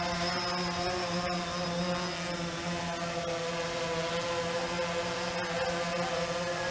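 DJI Phantom 3 Standard quadcopter's four propellers buzzing steadily, a hum of several even tones, as the drone lifts off from a low hover and climbs.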